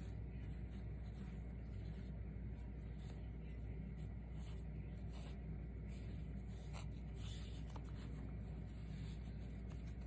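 Soft rustling and handling of a satin ribbon as it is unrolled and looped by hand, with a few faint clicks, over a steady low hum.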